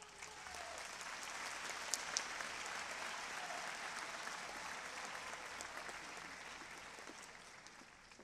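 Audience applauding, swelling within the first second, holding steady, then tapering off toward the end. Two sharp clicks stand out about two seconds in.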